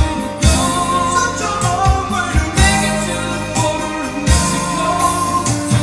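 Background music: a song with a sung melody over sustained chords and a drum beat.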